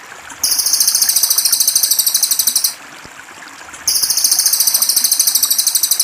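Two long, very high-pitched buzzing trills, each an even run of rapid pulses lasting about two seconds, from a bird-training tutor recording. Trickling water runs steadily underneath.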